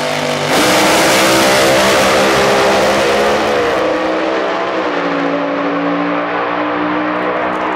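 Two blown door-slammer drag racing cars launching off the start line about half a second in, engines at full throttle as they race away down the strip. The engine note rises, then steps down in pitch twice as they pull away.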